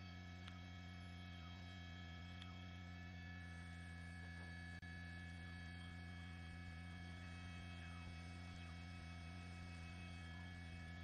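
Faint, steady electrical hum with a set of thin, steady higher tones above it, unchanging throughout: line noise on an open broadcast audio feed.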